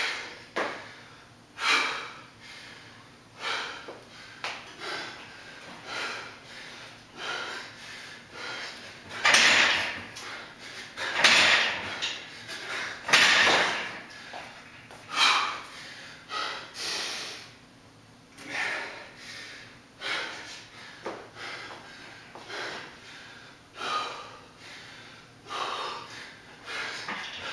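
A man's hard, gasping breaths, one every second or two, from an athlete catching his breath mid-workout. Near the end, the steel pull-up rig knocks and rattles as he starts chest-to-bar pull-ups.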